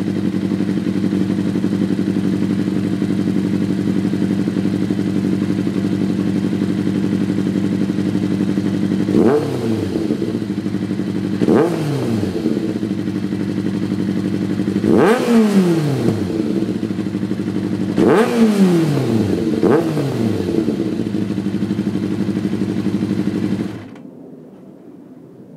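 Kawasaki ZX-6R inline-four running through a loud Quill race exhaust, idling steadily just after a cold start. From about nine seconds in the throttle is blipped several times, the revs shooting up and falling straight back, twice in quick doubles. Near the end the engine is switched off and cuts out suddenly.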